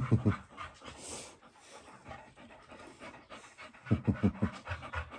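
A dog panting in quick, rhythmic breaths, in two short spells: one at the start and another about four seconds in.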